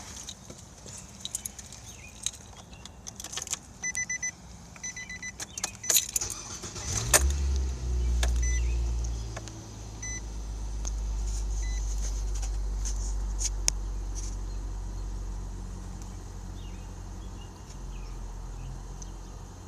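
Keys jangling and clicking, with a chime beeping several times. About seven seconds in, a 2017 Nissan Micra SV's 1.6-litre four-cylinder engine cranks and starts, runs high for a couple of seconds, then settles into a steady idle. The owner reports this engine knocking and tapping since it was new.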